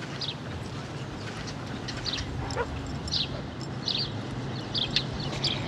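A dog whimpering and yipping: short high whines every half second or so, one longer whine about halfway through, over a low steady hum.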